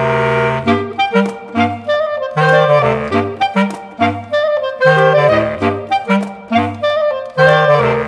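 Background music: a melody over a bass line that moves in steady notes about twice a second.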